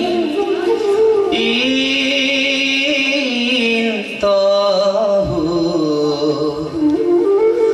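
Male voice singing a Borgeet in Rag Ahir, Prasangiya style, with a bamboo flute following the melody. The melody line bends and glides, with a short break about four seconds in.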